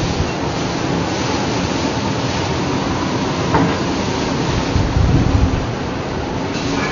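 Storm wind and heavy breaking seas, a steady rushing noise, with gusts rumbling on the microphone about two-thirds of the way in.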